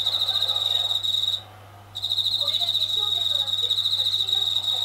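Yabukiri katydid (Tettigonia orientalis) singing: a high, rapidly pulsing buzz that stops for about half a second a second and a half in, then resumes. A low steady hum lies beneath it.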